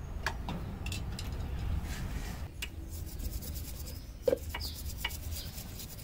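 Scattered small clicks and metal taps as hands work at a motorcycle's engine. From about two and a half seconds in, a toothbrush scrubs a motorcycle drive chain being cleaned with petrol, with one sharp metallic clink a little past four seconds.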